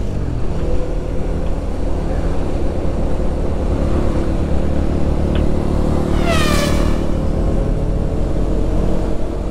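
Suzuki GSX-S125's single-cylinder four-stroke engine running at a steady cruise, heard from the rider's seat with wind rush on the microphone. About six seconds in, a brief high squeal falls in pitch.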